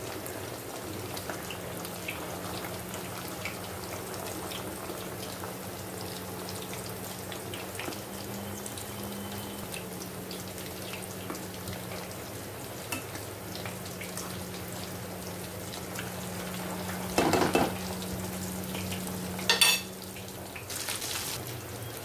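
Potato-stuffed poha kachoris deep-frying in hot oil in an aluminium kadhai: a steady sizzle with small crackles. Two louder knocks come a few seconds before the end.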